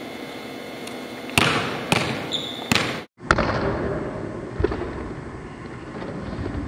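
A basketball bouncing on a gym court floor, several sharp bounces over the steady noise of a large hall, with a brief cut to silence about three seconds in.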